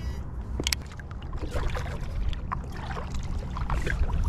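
Kayak paddle strokes: the blade dipping into the water and dripping, in short scattered splashes over a steady low rumble.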